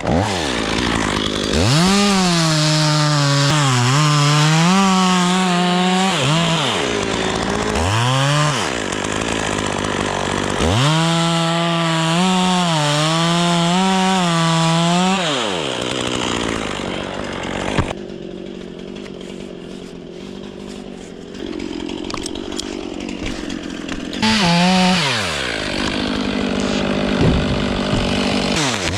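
Gas chainsaw revving up and cutting wood in two long cuts of about five seconds each, its pitch sagging and wavering under load. Between and after the cuts it drops back toward idle, with a short blip of the throttle and another rev near the end.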